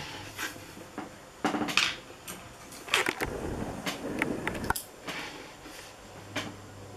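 Handling noise from a painted icon board being lifted, shifted and set down: a string of knocks and scrapes of the board against hands and the table.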